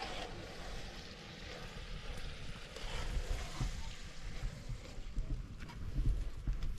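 Wind buffeting the microphone outdoors: a low, uneven rumble that swells about six seconds in, with a few faint ticks.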